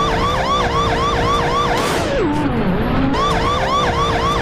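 Police car siren in a fast warble, about four rise-and-fall whoops a second, over a steady tone. About two seconds in it breaks for one long falling glide, then the warble resumes.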